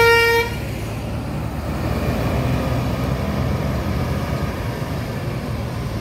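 A telolet bus horn holds its last note briefly at the start, then cuts off, leaving the Mercedes-Benz coach's diesel engine running low as the bus pulls away.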